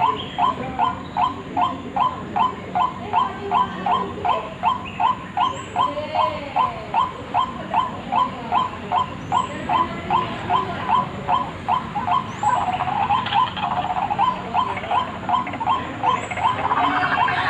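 White-breasted waterhen (ruak-ruak) calls played as a bird-trapping lure: a monotonous call repeated evenly about two to three times a second. Over the last few seconds the calling grows denser and harsher.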